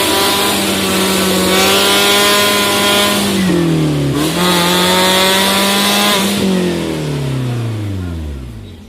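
Suzuki Jimny 4x4's engine held at high revs under load. The revs dip briefly about halfway and pick back up, then fall away steadily over the last two seconds as the sound dies down.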